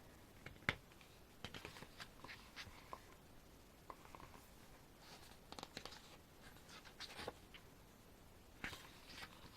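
Faint scattered paper rustles and small taps as the pages of a photobook in a CD album are handled and turned.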